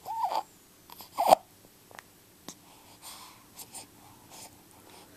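A person hiccuping: a short pitched hiccup at the start, then a sharper, louder one about a second in, followed by faint small clicks.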